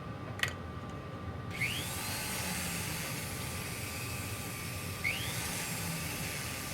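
A motorised jewellery polishing wheel running with a steady whine. About a second and a half in, a metal clasp is pressed against the buff and a continuous hiss sets in, with a short chirp as the piece meets the wheel, and again about five seconds in.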